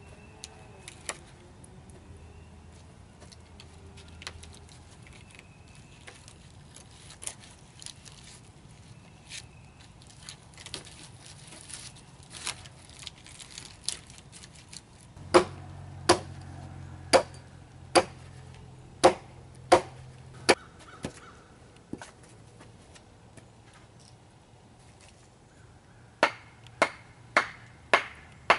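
Axe blows chopping into wood: light scattered knocks at first, then a run of about seven sharp, ringing strikes about one a second, and after a pause a faster run of strikes about two a second near the end.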